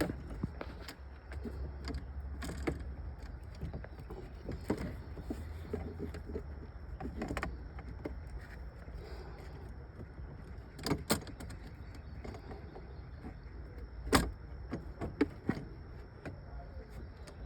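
Scattered clicks and knocks of hand tools and metal parts being worked onto a car battery terminal while a kill switch is fitted, with a steady low rumble underneath. The two sharpest knocks come about 11 and 14 seconds in.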